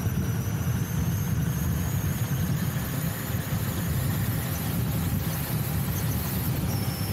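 Kingsong S22 Eagle electric unicycle accelerating at speed on asphalt: steady wind and road rumble, with a faint high whine that rises slowly in pitch as it speeds up from about 50 to 65 km/h.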